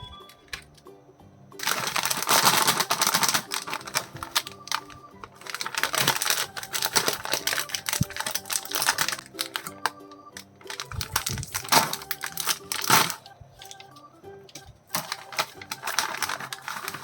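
Plastic snack wrapper crinkling and tearing in four bouts of dense crackling, the loudest sound, over steady background music.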